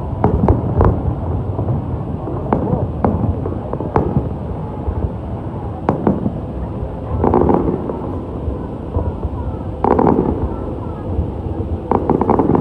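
Fireworks display: aerial shells bursting in a run of sharp bangs, with denser, louder flurries of bangs and crackle about 7, 10 and 12 seconds in.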